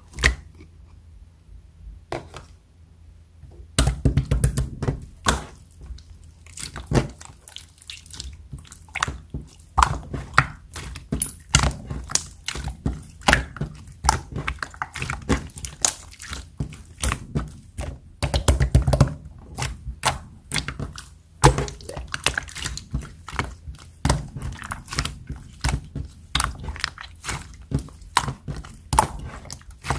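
Clear slime being pressed and squished by hand, giving rapid crisp clicks and small pops. After one click at the start and a few quiet seconds, the clicking starts about four seconds in and keeps on at several a second.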